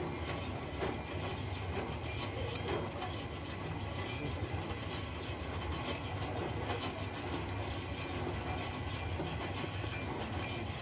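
Portable line-boring machine re-boring the worn pivot bore of a JCB bucket: the boring bar turns steadily in the bore, giving a steady mechanical rumble with scattered clicks and rattles.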